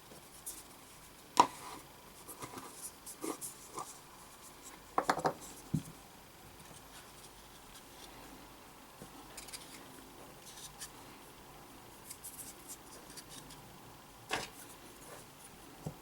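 Scattered small clicks, taps and light rubbing of tools and parts being handled on a workbench, with a sharp click about a second and a half in as the loudest, a few short clusters of taps after it, and a quieter stretch before another clatter near the end.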